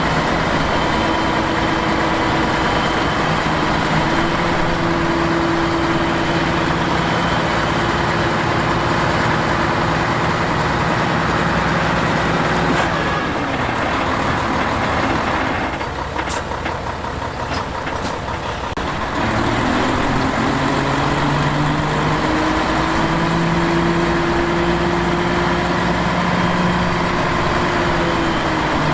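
Heavy diesel engine of earthmoving machinery running under load. Its pitch drops about 13 seconds in and it goes quieter for a few seconds, then it picks up again about 19 seconds in.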